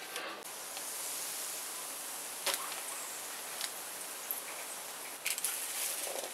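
Steady hiss with a few scattered clicks. Near the end a spatula starts rattling and scraping roasted chickpeas across a parchment-lined baking tray.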